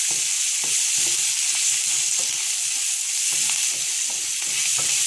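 Sliced onions, garlic and spices frying in hot oil in a frying pan, with a steady sizzle and the light scraping of a wooden spoon stirring them.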